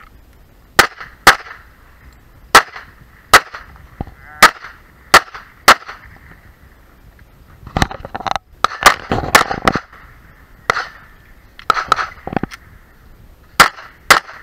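Pistol shots fired in a stage string: more than a dozen sharp reports, mostly in quick pairs, with short pauses between groups.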